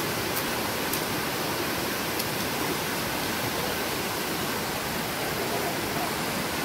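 Shallow rocky stream rushing over small rapids, a steady, even rush of water.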